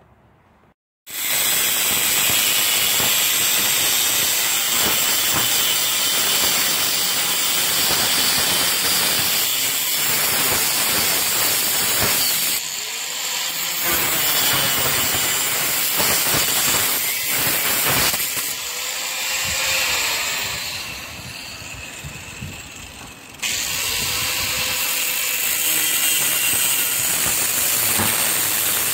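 Two-stroke golf cart engine running loudly with a hissy, noisy sound. About two-thirds of the way in it drops quieter for a few seconds, then comes back up suddenly.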